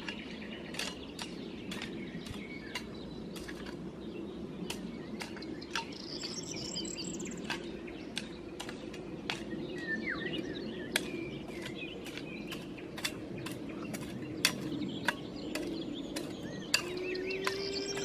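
Birds chirping now and then over a steady low hum, with sharp clicks every second or so.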